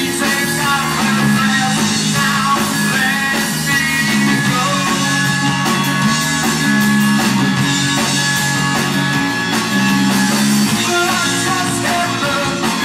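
Live rock band playing: electric guitars, bass guitar and drum kit, with a lead line of long held, slightly bending notes from a harmonica played into a cupped microphone.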